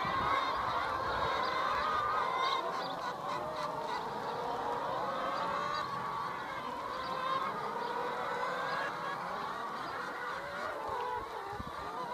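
A large flock of hens clucking and calling, many birds at once in a steady, overlapping chorus.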